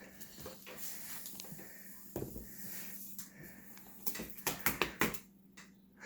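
Paper and cardstock of a handmade explosion box card being handled: soft rustling, then a quick run of light clicks and taps about four to five seconds in.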